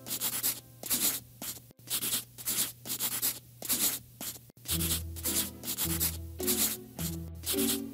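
Scribbling sound of colouring-in: short rubbing strokes like a pen on paper, about two a second, over soft background music that adds a bass line near the middle.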